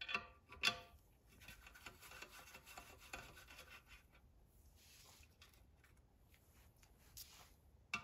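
Socket wrench working bolts on an oil-sludged engine crankcase: a couple of sharp metallic clinks near the start, then faint clicking and metal rubbing.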